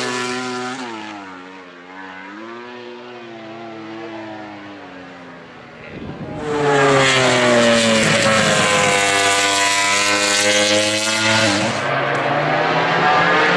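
MotoGP racing motorcycle engines running at high revs on track. One fades away in the first couple of seconds. About six seconds in, another comes in suddenly loud, its pitch sinking slowly over several seconds.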